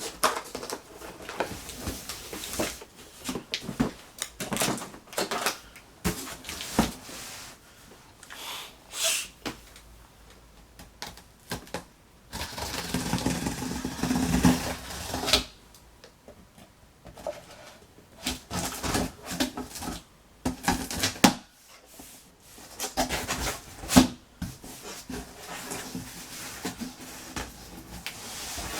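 Packaging being handled during an unboxing: scattered clicks, knocks and rustles, with a longer stretch of rustling about halfway through.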